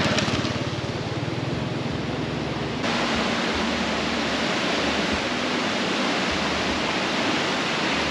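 Steady rushing roar of a fast-flowing river running high and muddy in flood, changing abruptly about three seconds in.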